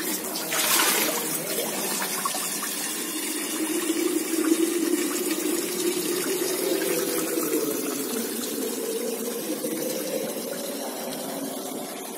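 Spring water running from a spout into a stainless steel vacuum bottle, filling it: a steady pouring rush with a hollow resonance whose pitch rises slowly as the bottle fills. A brief hiss sounds just after the start.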